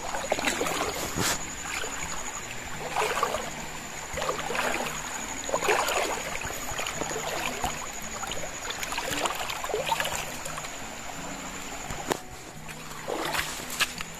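Footsteps splashing and sloshing in a shallow stream and squelching on a wet dirt path, coming irregularly every second or two. Soft background music plays under them.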